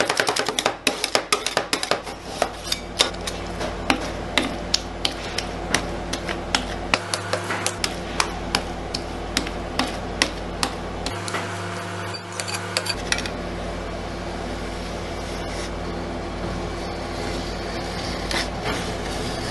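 Metal spatulas on a rolled-ice-cream cold plate: a rapid clatter of chopping taps for the first few seconds, then sparser taps and scraping as the mix is spread thin and scraped up into rolls. A steady hum runs underneath.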